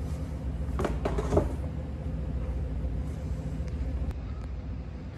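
A plaster sample board being set down against a display rack: a short clatter of knocks about a second in. A steady low hum runs underneath.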